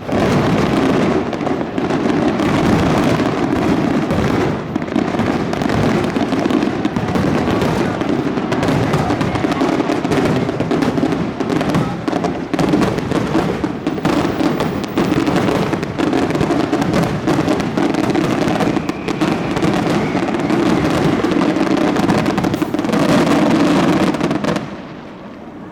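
Fireworks finale barrage: many shells bursting in rapid, overlapping cracks and booms, then stopping abruptly about a second before the end.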